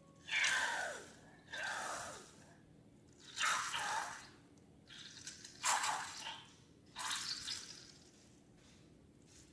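Wet slime squelching in about five short separate bursts, some with a falling squeak.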